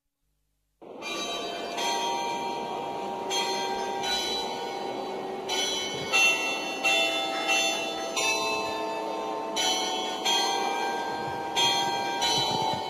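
Church bells ringing from about a second in: a slow, uneven series of strikes at changing pitches, each one ringing on into the next, over a steady background noise.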